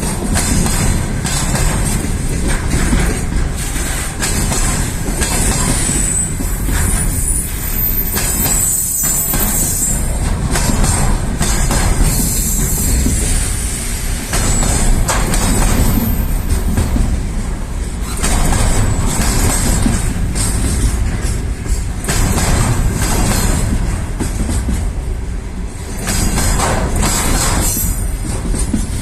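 Freight train wagons rolling on the rails: a steady loud clatter of wheels knocking over rail joints, with brief high wheel squeals at times.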